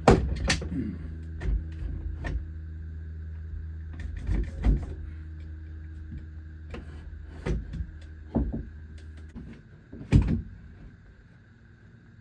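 A series of sharp knocks and taps on wood as a workbench beam is knocked down into level, about ten in all and irregularly spaced, the loudest at the start and about ten seconds in. Under them runs a steady low machine hum that stops about nine seconds in.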